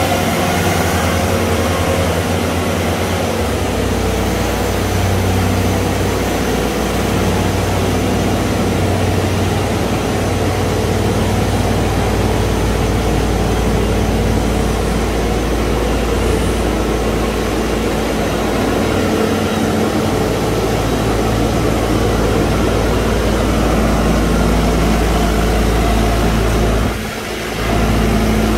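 Bobcat S750 skid-steer loader's diesel engine running steadily, with a brief dip in level about a second and a half before the end.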